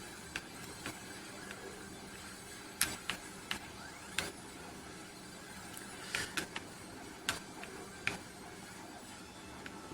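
Buttons of a Matricom G-Pad BX Bluetooth gamepad clicking as it is played: about a dozen short, scattered clicks at an irregular pace, with a faint steady hum underneath.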